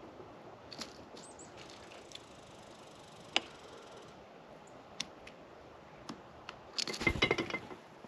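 Small birds pecking and cracking seeds at a bird feeder close to the microphone: scattered sharp taps, a few thin high chirps about a second in, and a quick flurry of louder taps near the end.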